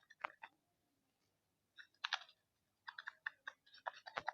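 Slime being mixed in a container: irregular quick clicks and crackles, with a pause of about a second near the start and thicker clicking towards the end.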